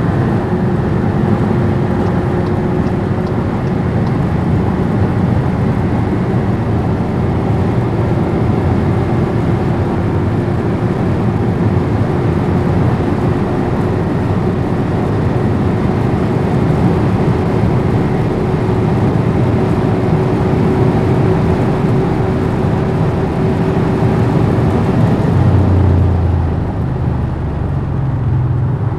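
Skoda Superb 4x4 driving at high speed: engine, tyre and wind noise with a steady tone that slowly rises in pitch. A few seconds before the end the tone stops and the noise drops a little.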